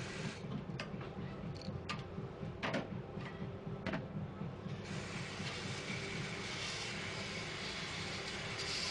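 Compressed-air paint spray gun hissing as it sprays, over a steady low hum. The hiss stops about half a second in, a few light clicks and knocks follow, and the spraying resumes a little before five seconds in.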